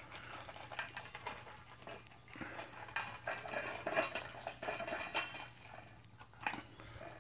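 A Kai Ken dog eating dog food from a stainless steel bowl: irregular crunching and chewing, with clinks against the metal bowl.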